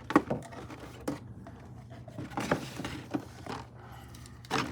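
A sealed Funko Soda can and its packaging being handled: a handful of light knocks and scrapes a second or so apart, the loudest near the end.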